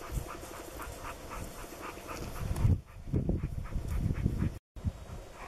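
Dog panting hard in a fast, even rhythm, growing louder and deeper about three seconds in.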